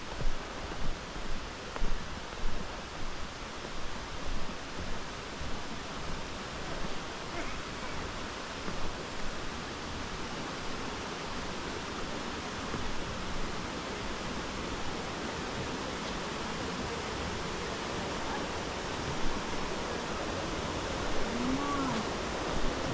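Footsteps on a hiking trail, about one and a half steps a second, over a steady rushing hiss. The steps fade out about ten seconds in, and the hiss carries on alone.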